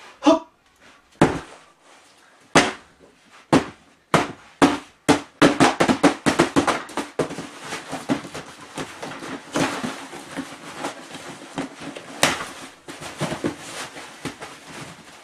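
Cardboard box being struck with an elbow: seven sharp thuds over the first five seconds, then continuous ripping and crackling of packing tape and cardboard as the box is torn open, with a few louder snaps.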